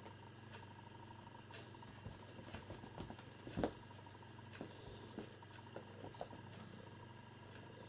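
Faint scattered taps and soft pattering, with one louder knock about three and a half seconds in, over a steady low room hum.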